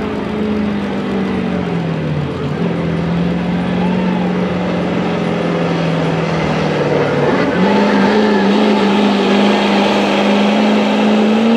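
Ford Super Duty dually pickup's turbo-diesel engine running at full power while dragging a weighted pulling sled. Its pitch sags about two seconds in as the load builds, holds low, then climbs back up about seven seconds in and stays high and a little louder.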